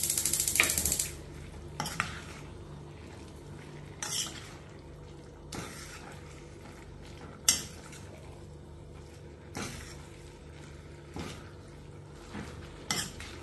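A steel spoon stirring and folding vegetables with ground coconut and curd in a stainless steel kadai, with a sharp scrape of metal on the pan every second or two. It opens with about a second of rapid clicking from the gas burner's igniter as the flame is relit.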